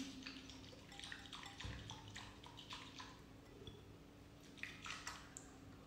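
Faint, irregular sloshing and light splashes of water stirred by hand in a bowl, mixing shampoo into the water until it dissolves.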